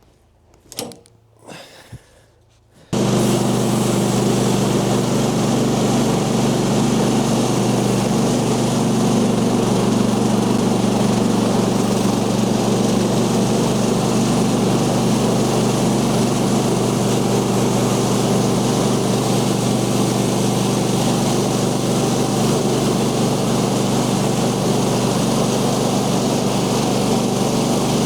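A few faint knocks, then, about three seconds in, the portable sawmill's small Kohler gasoline engine comes in suddenly, running steadily at high speed.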